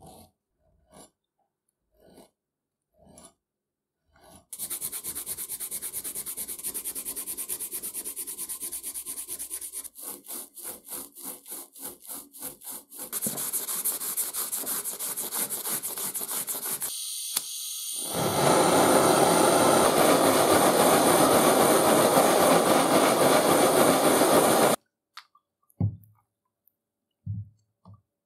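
Steel press handle being hand-sanded with a strip of abrasive cloth pulled back and forth over its shaft: a dense rubbing rasp, for a while in quick strokes about four a second, then louder, stopping suddenly. It starts with a few faint scrapes and ends in quiet broken by light knocks.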